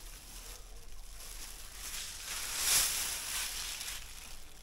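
A thin plastic bag rustling and crinkling as it is handled and filled, loudest a little past halfway through.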